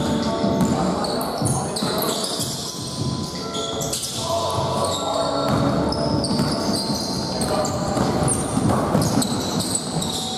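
Indoor basketball game: a ball bouncing on the court, with many short high squeaks and indistinct voices calling out throughout.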